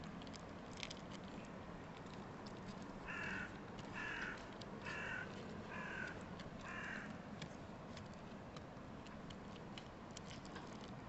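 A crow cawing five times in a row, about one caw a second, with faint scattered clicks underneath.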